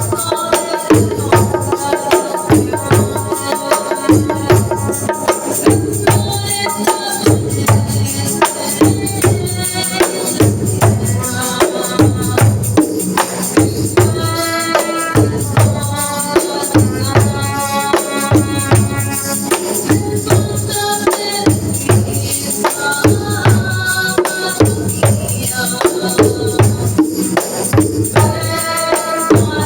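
Music: an even beat on hand drums with tambourine jingles, under a melody of held notes.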